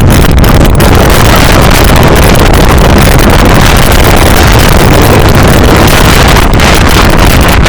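Strong wind buffeting the microphone on the roof of a moving bus: a very loud, steady, rumbling rush with no letup.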